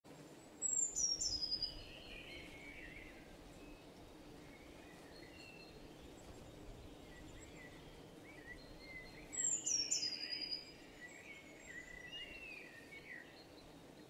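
Forest birdsong in spring. One bird sings a loud phrase twice, about a second in and again near ten seconds; each starts high and falls. Other birds call more quietly in the background over a light wind.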